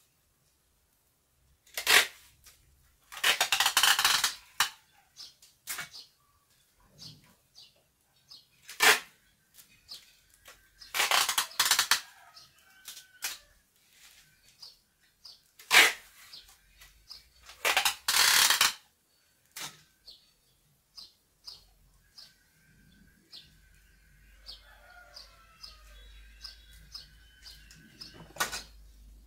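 Plastic wrapping crinkling and rustling in several bursts of about a second each, with sharp clicks and knocks between, as the wrapped root ball of a potted tree is handled. A faint wavering call sounds near the end.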